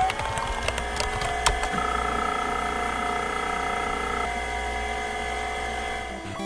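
An old computer running just after starting up: a steady whine and low hum from its drives and fan, with scattered sharp clicks. A higher steady tone joins from about two to four seconds in.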